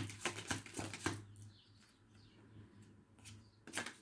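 A tarot deck being shuffled by hand: a quick run of papery card flicks for about the first second, then quiet, then a few more card taps near the end.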